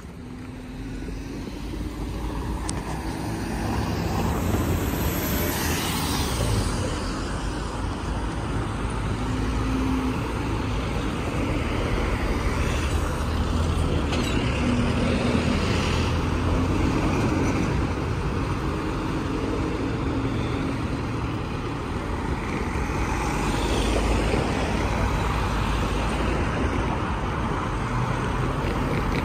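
Road traffic: a line of cars driving across a railway level crossing one after another, engine and tyre noise building over the first few seconds and then continuing steadily.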